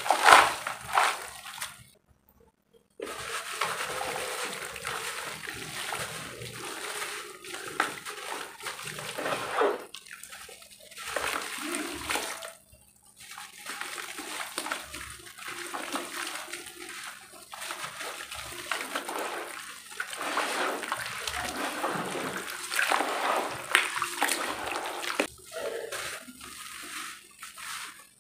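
Dry roasted dirt crumbled by hand and dropped into a basin of shallow water: powdery sifting, soft splashing and sloshing in uneven bursts. The sound breaks off briefly about two seconds in.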